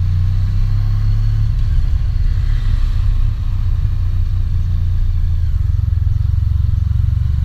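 Honda Crosstourer's 1237 cc V4 engine running under way, picked up by a GoPro Hero 4's built-in microphone as a loud, steady low drone. It dips briefly about three seconds in.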